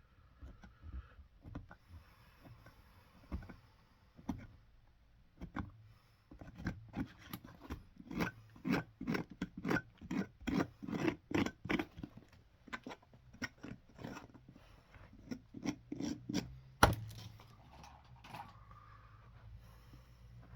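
A hand tool scraping in quick repeated strokes, about two a second, with a brief pause partway through, during resoling work on a leather boot. One sharp knock comes near the end.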